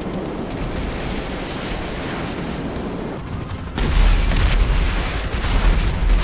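Steady rushing noise, then about four seconds in a sudden loud explosion whose deep rumble goes on.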